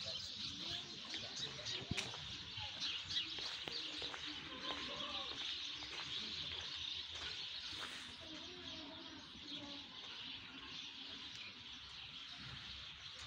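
Many small birds chirping continuously, a dense high-pitched chatter.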